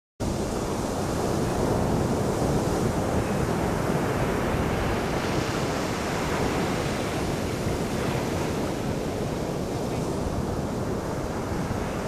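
Sea surf breaking and washing up a sand beach: a steady rushing of waves that cuts in abruptly at the start.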